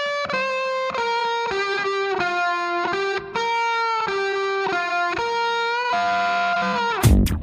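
Music: a solo lead line on distorted electric guitar playing a slow melody of held single notes, with no drums under it. A full band with a driving beat comes in near the end.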